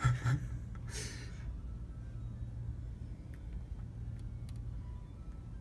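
A person's breathy exhales, one right at the start and a sigh-like breath about a second in, over a steady low hum.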